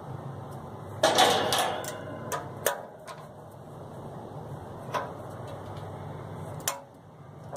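Metal-on-metal clicks and a short rattle as the fan blade hub is seated on the condenser fan motor shaft and worked with a hand driver. A quick run of clicks comes about a second in, followed by a few single clicks.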